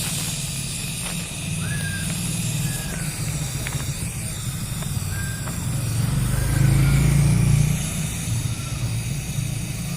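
Steady low rumble of motor traffic, with one vehicle growing louder about six seconds in and fading about two seconds later.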